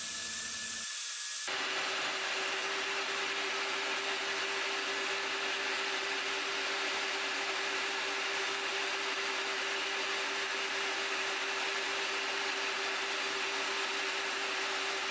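Harbor Freight portable band saw with a 14-teeth-per-inch Lenox blade running steadily, an even hiss with a constant hum. It starts just over a second in.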